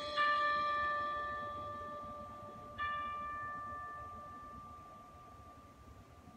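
Marimba: two single notes, the same high note struck twice with a yarn mallet about two and a half seconds apart, each left to ring and fade away slowly.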